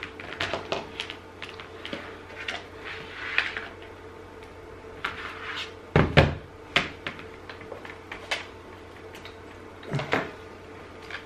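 Plastic clicks, knocks and rustles of hands handling a battery charger and its plug while connecting it to charge, with two louder thumps about six and ten seconds in.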